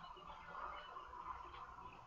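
Faint outdoor ambience: a few short, scattered bird chirps over a steady background hiss.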